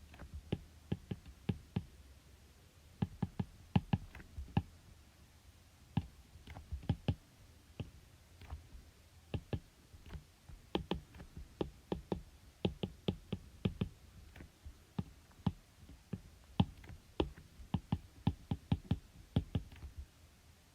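Keys being tapped: sharp clicks in quick, irregular runs with short pauses between.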